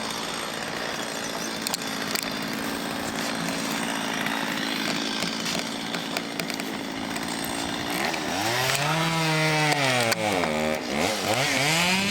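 A small engine running steadily, then revving up and falling back twice near the end.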